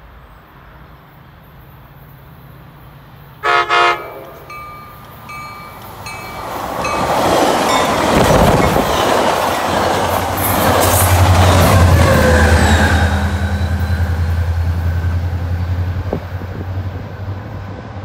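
Altamont Corridor Express (ACE) commuter train sounding two short horn blasts about three and a half seconds in, then passing close by: wheel and rail noise builds to a peak, and the low drone of its diesel locomotive carries on as the bilevel coaches go past, easing off near the end.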